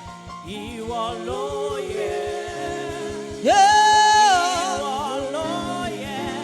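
Yoruba gospel praise singing over a quick, steady low beat and held low backing notes. About three and a half seconds in, a voice slides up into a long held high note.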